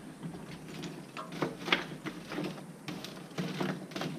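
Irregular clinks and scrapes of a metal tool raking and spreading hot charcoal embers under a parrilla grill grate.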